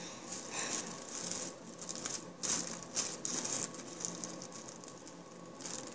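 Plastic bag holding sprinkles and seasonings crinkling in irregular soft rustles as it is handled and squeezed to mix the contents.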